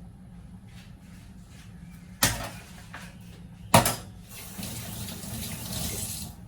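Two sharp knocks about a second and a half apart, the second the louder, then water running from a kitchen tap for about two seconds.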